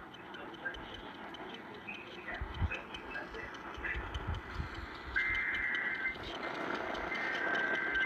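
Static and hiss from a NOAA weather radio pulling in a distant station. About five seconds in come two roughly one-second bursts of high-pitched digital warbling, a second apart: the SAME data header that opens an Emergency Alert System message.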